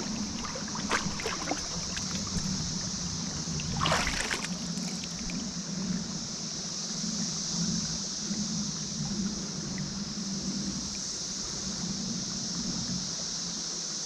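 Water moving around a paddled boat on a creek over a steady hiss, with a few light knocks near the start and a sharper splash-like sound about four seconds in.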